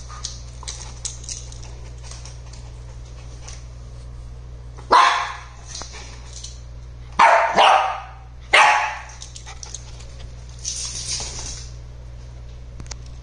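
Dogs play-wrestling on a hard floor, with four loud, short barks in the middle, after light clicks and scuffles.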